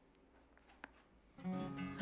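Near quiet with a faint click, then an acoustic guitar starts strumming about one and a half seconds in, its chord ringing on.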